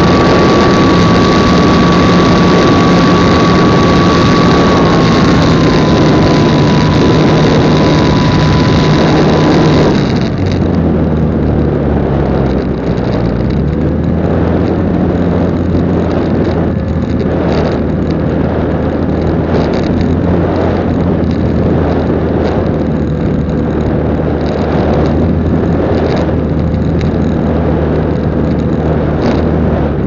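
Onboard sound of a Trojan T-28 RC plane's electric motor and propeller running under power, a high whine that steps slightly down in pitch. About ten seconds in the throttle is cut back for the landing approach: the whine drops away, leaving a lower propeller hum with gusty wind buffeting the airframe and camera.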